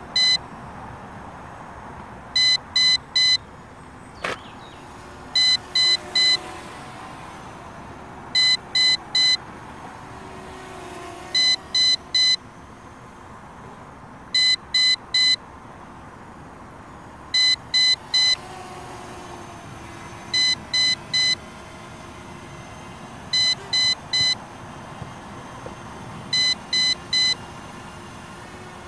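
Low-battery warning for the MJX Bugs B7 quadcopter: groups of three short high beeps, repeating about every three seconds over a steady background hiss. A single sharp click about four seconds in.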